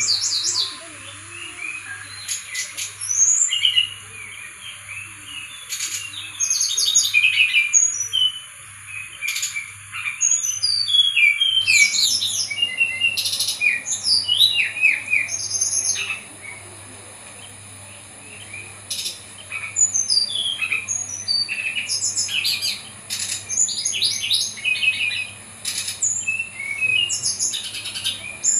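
Brown-chested jungle flycatcher singing a long, varied song of rapid chirps, trills and whistled phrases in loud bursts with short pauses, running through the phrases of other birds it has learned to mimic.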